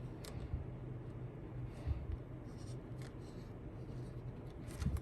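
Light scratching and handling noises from working on a phone by hand, with a few soft clicks over a low steady hum.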